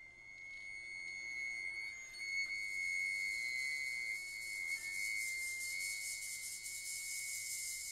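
Contemporary chamber music for flute, viola, cello and percussion: a single thin, high note held steady, joined about two and a half seconds in by the soft, continuous rustle of a shaken maraca.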